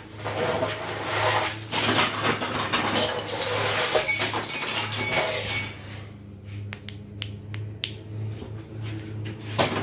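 Small metal and plastic sewing machine parts being gathered up by hand, rattling and clinking for about five seconds, then only a few light clicks. A steady low hum runs underneath.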